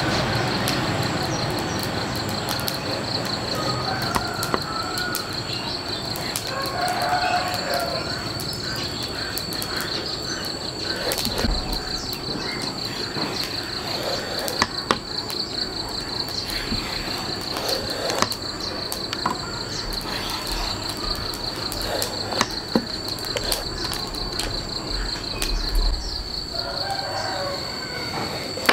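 An insect trilling in one steady high tone, over background noise with scattered sharp clicks.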